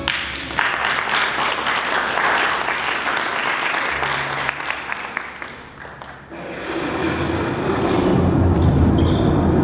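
Audience applauding in a large hall for about six seconds as a song ends. The applause dies down, and about six seconds in new music starts and grows louder.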